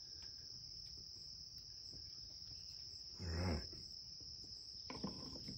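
Steady high-pitched insect chorus buzzing continuously in the surrounding vegetation. About three seconds in there is a short vocal sound from a man, and faint scrapes from a knife spreading onto bread come near the end.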